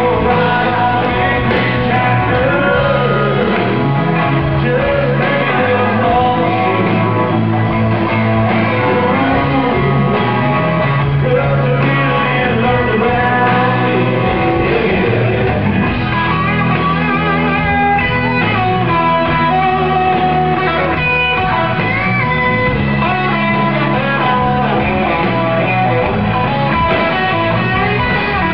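Live country rock band playing, with electric guitars and bass under a man's lead vocal.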